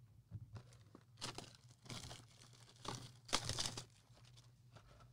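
Plastic trading-card packaging crinkling and tearing in short, faint bursts as it is opened, the longest about three and a half seconds in.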